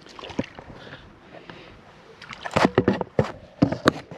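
A hooked small bream splashing at the water's surface: a cluster of loud, irregular splashes starting about halfway through.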